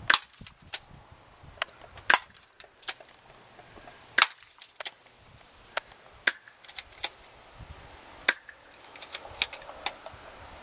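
S32P airsoft pump shotgun firing BBs: a series of sharp pops at irregular intervals, with fainter clicks in between.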